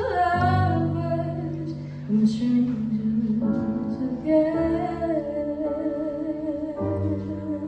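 A woman singing long held notes with a slight vibrato over sustained electric keyboard chords.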